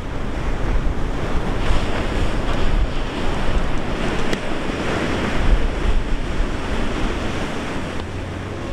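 Ocean surf breaking and washing up the beach in heavy whitewater, with wind buffeting the microphone.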